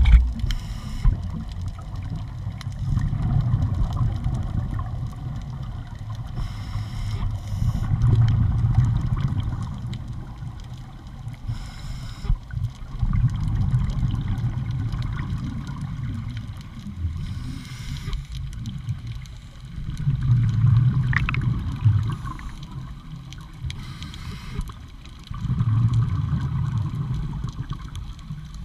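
Scuba breathing through a regulator underwater: a short hiss on each inhale, then a longer low gurgle of exhaled bubbles. The cycle repeats about every five to six seconds.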